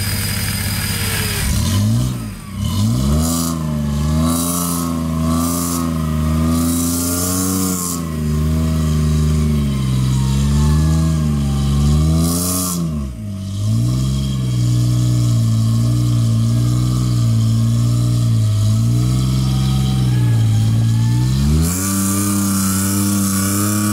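Jeep Wrangler's engine revving hard in uneven surges, its pitch rising and falling about once a second as the throttle is worked to push through deep mud. Twice, about two and a half and thirteen seconds in, the revs drop away briefly and then climb again.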